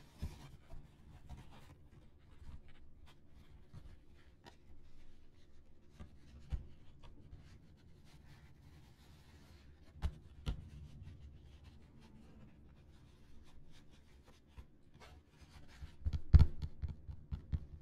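Fingertips and nails tapping and scratching on a small Earth-printed ball: scattered light taps and soft rubbing, with a couple of sharper taps about ten seconds in and a cluster of louder ones near the end.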